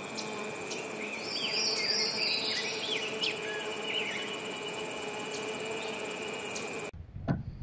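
Nature ambience of a steady, high-pitched insect sound, with brief rising and falling chirps in the first few seconds. It cuts off abruptly about seven seconds in, giving way to a low wind-like rumble and a single click.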